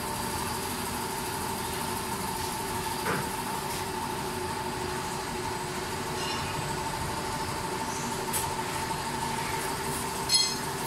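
Automatic four-head oil filling and capping machine running: a steady motor hum with a constant high whine, a single click about three seconds in and a short burst of rapid clicking near the end.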